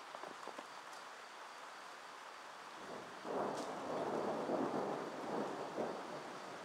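Thunder rumbling, swelling up about three seconds in and dying away over the next few seconds, over a steady hiss of rain.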